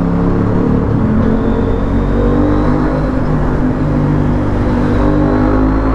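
KTM 890 Duke R's parallel-twin engine running at a steady, even level under light acceleration as the bike gains speed, heard inside a road tunnel.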